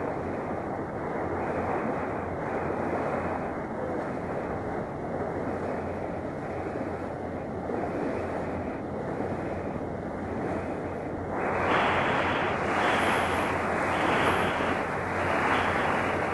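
Wind buffeting the microphone and the rush of sea water around a moving ferry, over a low steady hum. The rush grows louder and brighter about eleven seconds in.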